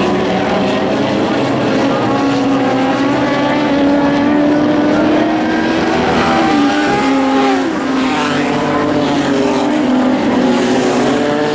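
Lightning sprint car engines racing on a dirt speedway, running hard, their pitch rising and falling as the cars lap and pass, with a shift in note about six seconds in.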